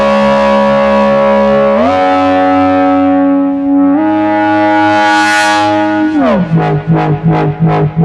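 Studio Electronics Midimini V30 analog monosynth playing a wobble bass patch. Held bass notes glide from pitch to pitch every couple of seconds while the filter cutoff is swept by hand, closing dark and then opening bright. Near the end the filter starts wobbling in a steady rhythm, about three pulses a second.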